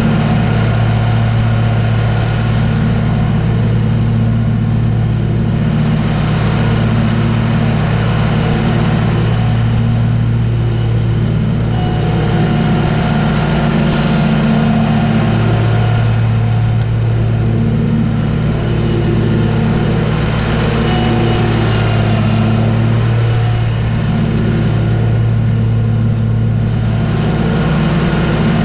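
Commercial lawn mower's engine running steadily at cutting speed with the blades spinning, a continuous low drone that swells and eases a little every few seconds, with a faint whine above it.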